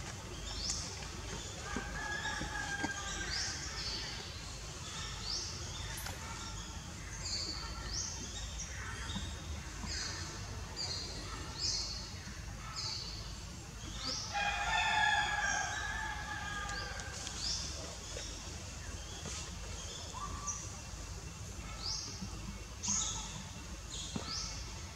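A rooster crows twice, briefly about two seconds in and longer and louder past the middle, over short high rising bird chirps that repeat every second or so.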